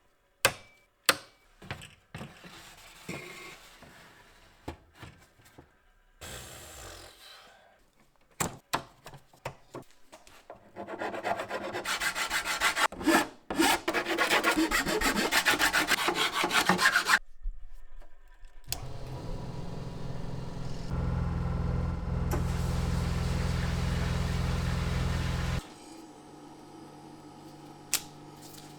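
Workshop handwork: scattered knocks and clicks, then fast rasping strokes of a hand tool on a part for about six seconds. About halfway through, a small electric motor starts, runs steadily for about seven seconds, and cuts off suddenly.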